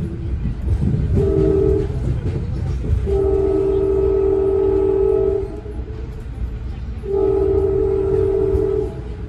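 Horn of a moving Amtrak passenger train, heard from inside a coach: a short blast about a second in, then two long blasts, several notes sounding together. Beneath it is the steady rumble of the train running on the rails.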